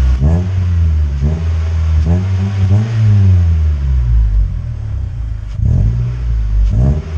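Mitsubishi Lancer GTS engine revved in several quick throttle blips, with one longer rev about three seconds in, heard through an aftermarket Skunk2 turbo muffler fitted in place of the stock silencer.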